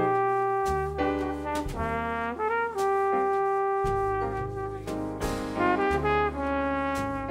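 A small jazz band plays a ballad: a brass horn solos in long held notes, one held for nearly three seconds, over upright bass, piano and drum kit.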